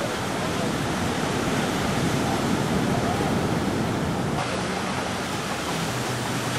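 Ocean surf breaking and washing in, a steady rushing noise.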